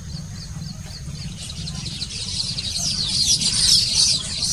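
Baya weavers chattering: a dense run of quick, high, falling chirps that builds from about a second and a half in and is loudest near the end, over a low steady hum.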